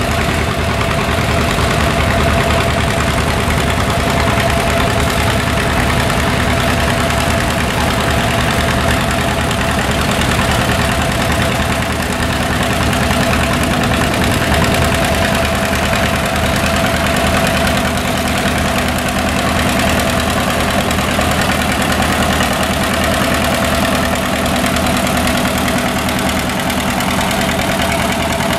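Antique John Deere two-cylinder tractor engine running steadily under load with an even beat as it pulls a weight-transfer sled.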